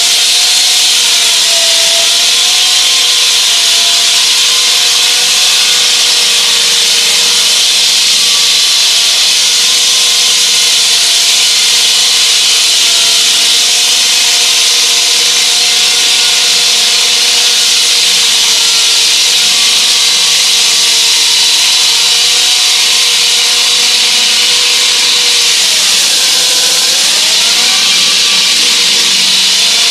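Hydraulic diamond-blade wall saw cutting reinforced concrete: a loud, steady grinding hiss with a wavering whine, whose pitch dips and recovers once near the end.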